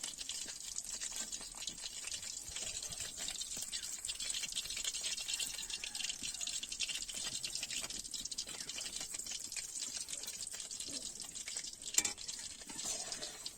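Food sizzling and crackling in hot oil in a cooking pan, with one sharp knock about twelve seconds in.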